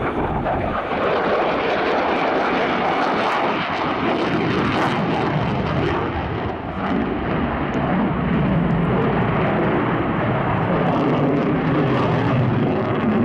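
Lockheed Martin F-35B Lightning II's single Pratt & Whitney F135 turbofan: loud, steady jet noise with a brief dip about seven seconds in, growing deeper in the second half.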